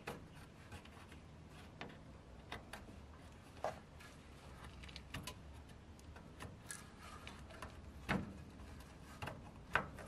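Faint, irregular clicks and rubbing of a hand working a radiator coolant drain plug loose, before any coolant flows.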